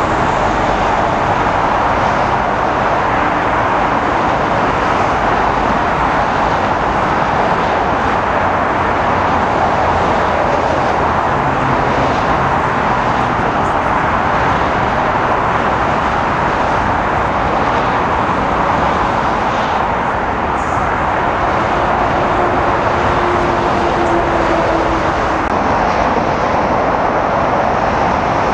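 Steady jet engine noise from a twin-engine airliner climbing away after takeoff, an even rushing sound with no change in level.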